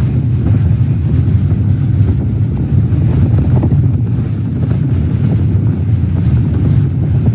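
Tornado wind roaring: a loud, steady, deep rumble of wind buffeting the microphone.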